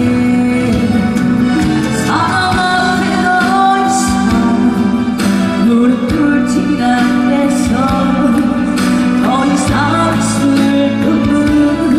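A woman singing a song over backing music with a steady beat.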